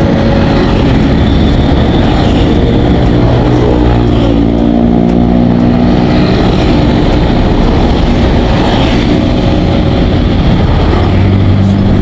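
Motor vehicle engine running on the road amid loud rushing noise, its pitch dipping and then rising again about four to six seconds in.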